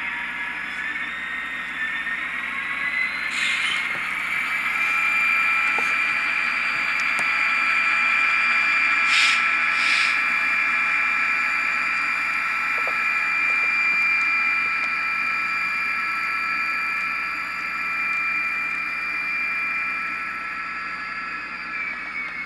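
Sound decoder in an HO-scale Intermountain SD40-2 model locomotive playing an EMD diesel through its small speaker as the model runs in reverse. The engine's whine rises over the first few seconds, holds steady, and falls away near the end. Three short hisses come through: one a few seconds in, and two close together about nine and ten seconds in.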